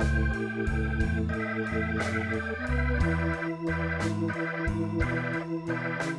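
Background blues music led by an organ, with changing bass notes under it and a steady drum beat.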